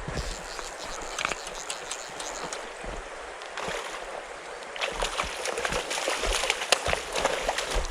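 Shallow stream water flowing, with sloshing and splashing that grows busier from about five seconds in.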